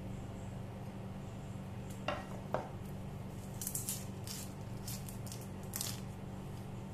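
Two knocks as a cleaver is laid down on a wooden chopping board, then dry, papery crackling as the skin is peeled off a red onion by hand, over a steady low hum.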